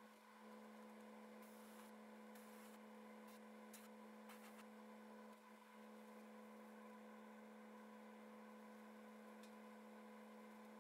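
Faint steady hum with a few brief, faint bursts of hiss in the first half.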